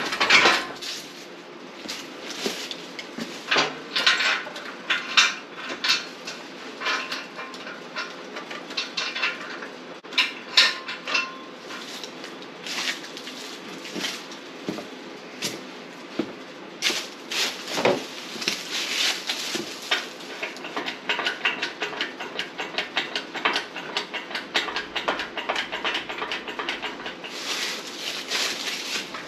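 Steel engine hoist being handled and set up: repeated metal clanks and knocks of square steel tubing, pins and legs. In the second half this gives way to a denser, rapid metallic rattling.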